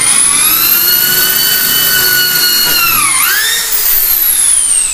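Cordless drill boring a bolt hole through the bed's laminated top panel: a steady high motor whine that dips briefly about three seconds in, then falls steadily in pitch as the motor winds down near the end.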